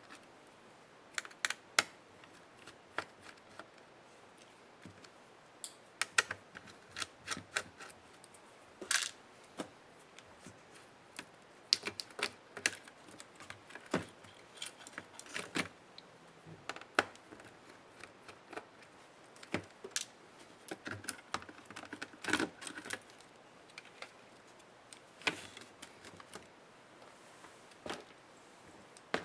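Irregular small clicks and taps of an HP Pavilion 13 laptop being taken apart by hand: plastic parts and small tools knocking and snapping, sometimes several in quick succession.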